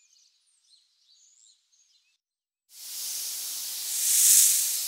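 Faint birdsong, then a loud steady snake hiss that starts a little under three seconds in and swells to a peak about four seconds in.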